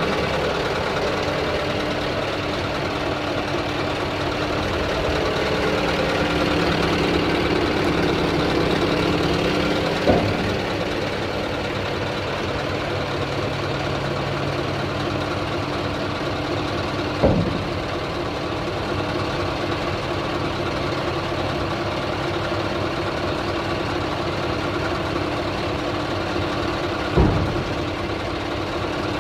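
Scania R tipper truck's diesel engine idling steadily while the raised tipper body is lowered, with three short clunks about ten, seventeen and twenty-seven seconds in.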